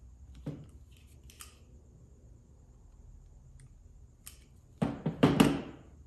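Hand tools cutting and working automotive wire: a few light clicks, then three sharp snips in quick succession about five seconds in.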